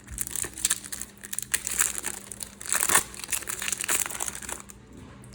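Crinkly wrapper of a Match Attax trading-card packet being torn open and scrunched in the hands, a rapid run of crackles that peaks about three seconds in.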